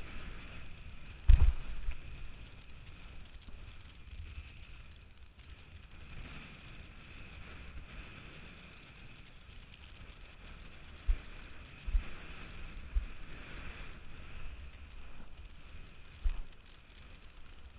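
Steady rush of wind and water past a windsurf rig crossing rough chop, with short low thumps: a strong one about a second in and several more near the end.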